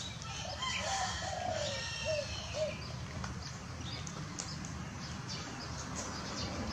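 Birds chirping: about five short notes, each rising and falling in pitch, in the first three seconds, over a steady low background noise.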